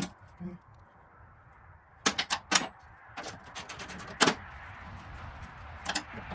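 Hand tools working on the bolts of a vehicle's front body clip: a run of scattered, sharp clicks and knocks that begins about two seconds in, after a quiet start.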